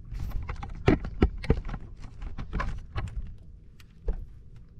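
Several sharp knocks and taps on a bass boat's deck over a low rumble, the loudest about a second in.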